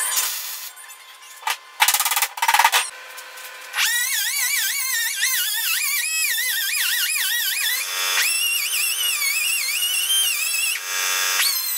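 A few short, crackling bursts of MIG spot welding on a steel door-bottom patch panel. From about four seconds in, a small air-powered cut-off grinder whines as it grinds the welds down. Its pitch wavers as the disc bites, and it stops briefly and starts again near the end.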